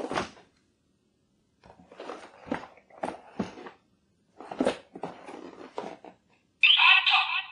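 A cardboard toy box being handled and turned over on cloth: a series of short rubbing and scraping noises, then a louder rasping sound just under a second long near the end.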